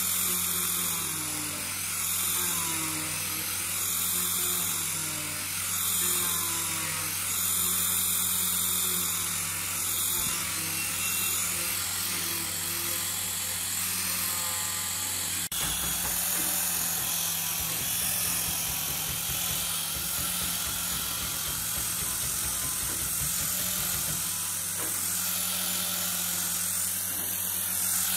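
Handheld electric angle grinder with a sanding disc running steadily, sanding the edge of a hardwood board. The sound changes abruptly about halfway through, at a cut to another sanding pass.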